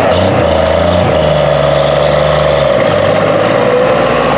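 Turbocharged diesel pickup engine at full throttle, pulling a sled under heavy load and pouring black smoke. The engine drone is steady, the low note changes about two and a half seconds in, and a faint high turbo whistle rises over it.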